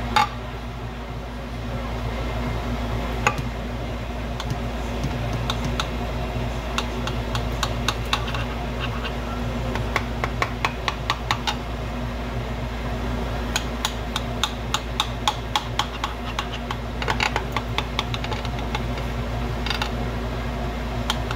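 Light clicks and taps of kitchen food preparation, handling utensils and packaging on a counter, coming in quick bursts over a steady mechanical hum.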